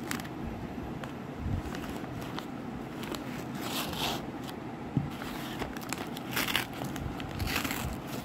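Brown kraft-paper mailer being torn open and crumpled by hand, in several short rustling bursts, with a light knock about five seconds in.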